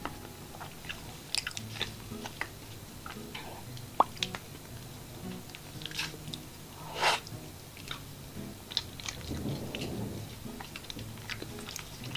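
Close-miked chewing and wet mouth sounds from eating a soft matcha ice-cream cake, with scattered small clicks and a few short soft bursts.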